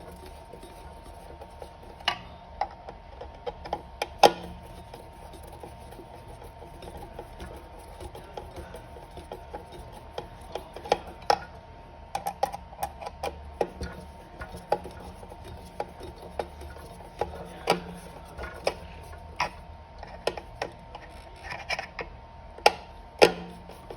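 A hand screwdriver working small screws into a plastic e-bike battery casing to hold the power connector: irregular clicks and taps of metal on plastic, bunched in runs.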